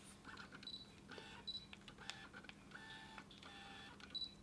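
Canon EF 50mm f/1.8 STM lens autofocusing on a Canon DSLR: about five faint, short whirs of its stepping focus motor as it drives focus back and forth. A few short, high focus-confirmation beeps from the camera come between them.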